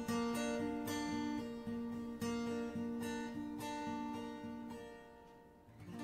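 Instrumental music of plucked notes on a stringed instrument, like an acoustic guitar, fading out near the end.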